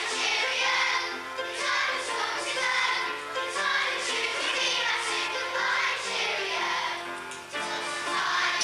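A song playing: singing voices over an instrumental accompaniment.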